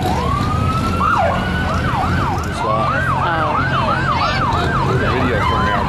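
Police siren on a sheriff's department vehicle: a wail winding down, then rising again, then switching about a second in to a yelp that sweeps up and down, speeding up to about three sweeps a second, over a low steady rumble.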